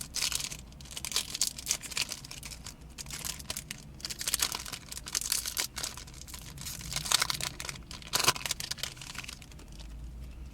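Foil wrapper of a Yu-Gi-Oh! booster pack being torn open and crinkled by hand: a run of short, irregular crackles and rustles.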